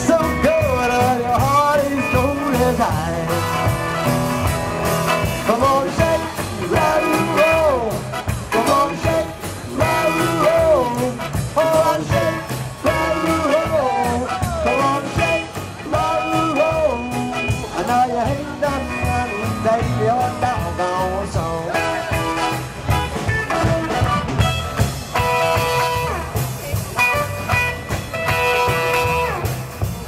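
Live rock 'n' roll band playing: vocals over upright bass, electric guitar and drums with a steady beat. The singing stops about twenty seconds in and the instruments play on.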